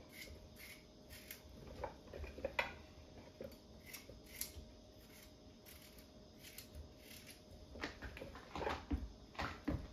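Kitchen handling noises as chopped vegetables are put into the soup pot: irregular clicks and taps, with a few louder knocks and thumps near the end.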